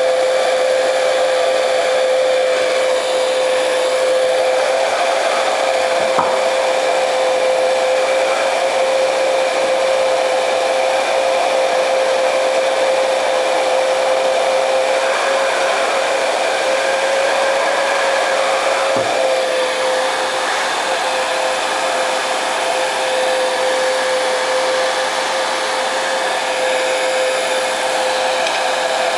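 Handheld heat gun running steadily: a constant blower whine over rushing air, heating a clutch to loosen a press-fit one-way bearing.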